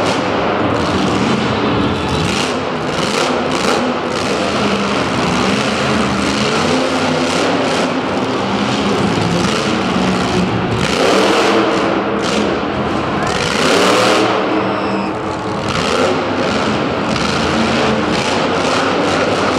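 Monster truck engine running hard at high throttle during a wheelie run, its pitch rising and falling as the throttle is worked, with two clear revs about eleven and fourteen seconds in.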